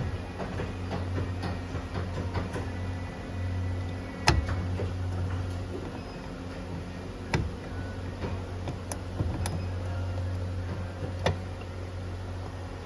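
A steady low mechanical hum with a few sharp clicks and knocks over it, the loudest about four seconds in.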